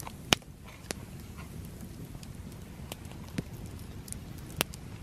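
Campfire burning with scattered sharp crackles and pops of wood, five or so in all, the loudest about a third of a second in.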